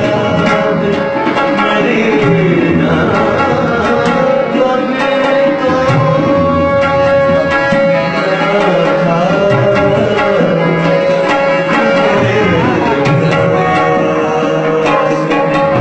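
Tabla playing in a music performance, with a steady drone note held underneath and a melody that glides up and down in pitch above it.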